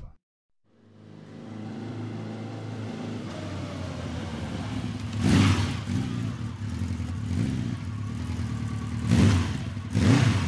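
A motorcycle engine running on the road. It fades in after a brief silence and swells louder about five seconds in and twice more near the end.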